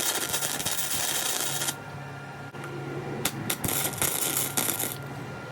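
Arc welding, tacking a steel castor wheel onto steel box section: two bursts of crackling arc, the first stopping about a second and a half in, the second from about three seconds in to about five.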